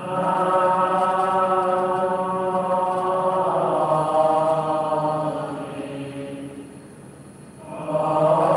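Buddhist devotional chanting in long, held notes. It fades out about six and a half seconds in and starts again near the end.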